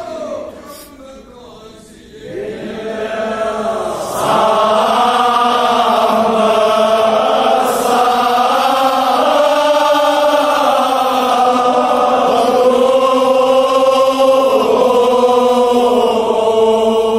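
Men's voices chanting a Kashmiri marsiya, a Shia elegy, in long drawn-out sung lines; it starts faint and swells to full voice about four seconds in.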